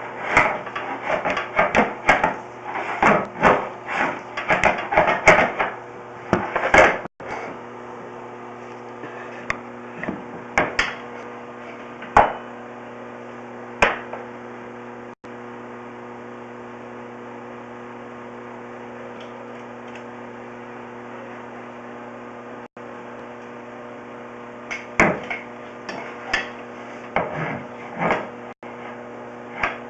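Knocking and clattering of a sewer inspection camera and its push cable being worked into a drain cleanout: a dense run of knocks at first, a few scattered single knocks, then another cluster near the end. A steady electrical hum runs underneath.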